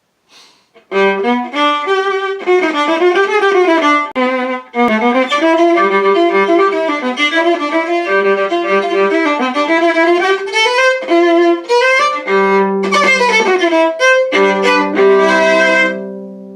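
Viola bowed in a classical piece: a line of quickly changing notes, often with a second note sounding beneath, ending on a held chord that fades away.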